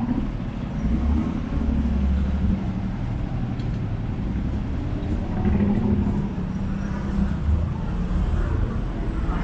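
Street traffic: motor vehicle engines running close by, with a steady low rumble that swells as vehicles pass.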